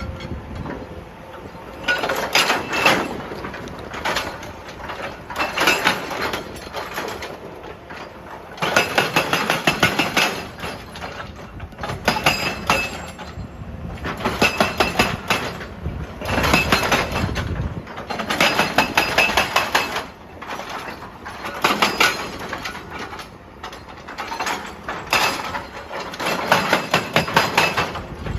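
Excavator-mounted hydraulic breaker hammering rock in repeated bursts of rapid blows, each lasting a second or two with short pauses between, over the machine's running engine.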